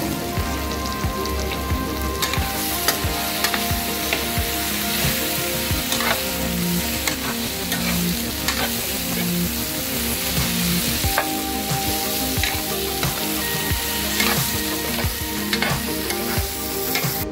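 Boiled tapioca pieces frying in oil in a nonstick pan, sizzling steadily, while a metal spoon stirs and scrapes them, with frequent small clicks of the spoon against the pan.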